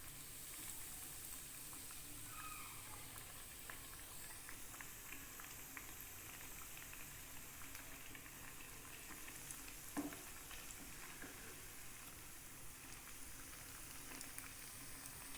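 Bread rolls coated in egg and breadcrumbs and filled with cheese, frying in hot oil over medium heat: a steady faint sizzle with scattered small crackles. A single sharp knock comes about ten seconds in.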